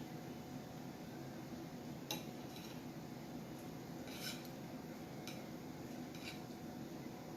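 Eating utensil clinking and scraping against a dish while eating: a few separate sharp clicks a second or so apart, the sharpest about two seconds in and a longer scrape near the middle.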